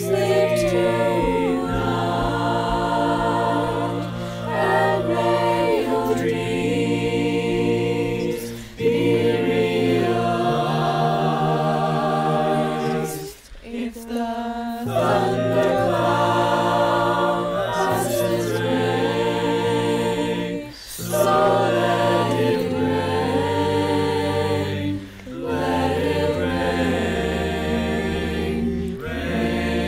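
A cappella choir singing slow, sustained chords, phrase by phrase, with short breaks between phrases.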